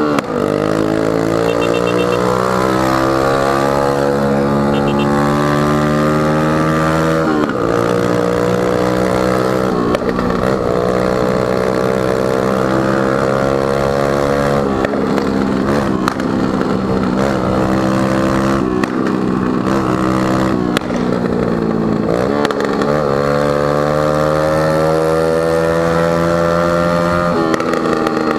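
Small Zig 100 scooter engine running with its muffler broken off, leaving only the bare exhaust pipe. The engine note climbs as the throttle is opened and falls away each time it is closed, about five times over.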